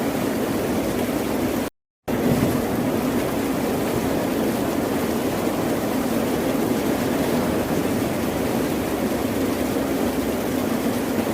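Steady, dense rush of ocean surf, with no distinct wave breaks. It cuts out completely for a split second about two seconds in, then resumes at the same level.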